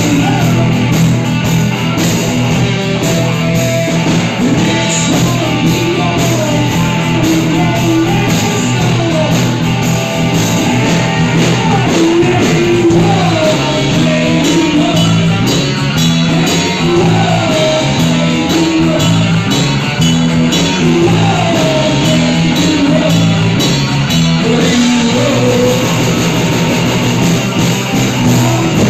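Live rock band playing loudly: electric guitars over bass and drums, with gliding, bending notes in the melody line.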